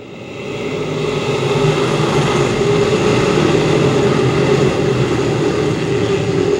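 A pack of dirt crate modified race cars accelerating together at the green flag. Their engines swell over the first second or two into a loud, steady drone.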